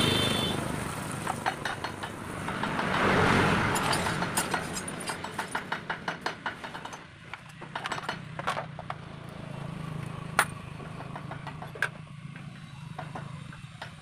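TVS motorcycle's single-cylinder engine running at idle, swelling briefly about three seconds in, then running low and uneven with a rapid, irregular ticking.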